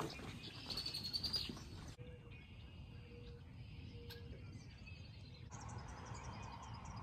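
Faint bird calls and chirps over low outdoor background noise. The ambience changes abruptly twice, about two seconds in and again past five seconds.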